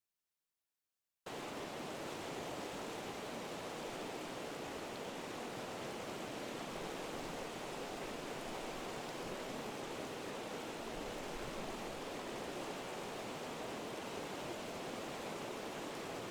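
Steady rush of flowing river water, even and unbroken, starting after about a second of silence.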